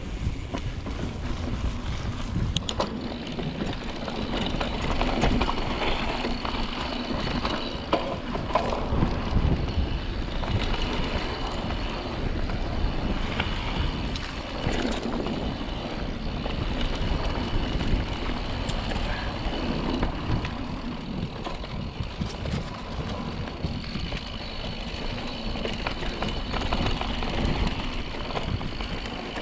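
Mountain bike rolling fast down a dry dirt trail: tyres running over dirt and the bike rattling, with frequent short knocks over bumps, heard through a handlebar-mounted GoPro.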